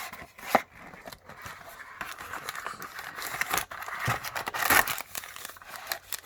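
Plastic packaging on a football trading-card box being crinkled and torn open, with a sharp snap about half a second in and denser crinkling through the middle seconds.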